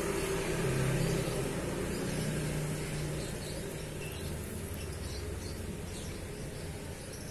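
A motor vehicle engine running with a steady low hum that shifts slightly in pitch and slowly fades.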